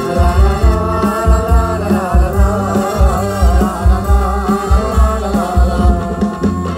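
Live Thai likay stage band playing through loudspeakers: a heavy drum beat about twice a second under a wavering melody.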